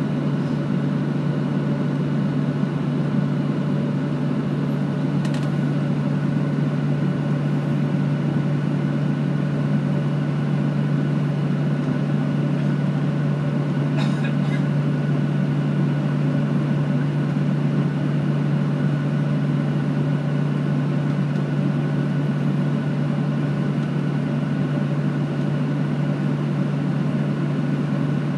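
Steady cabin noise inside a Boeing 737-800 taxiing: a constant low hum from the CFM56-7B jet engines and cabin air system, with a couple of faint ticks.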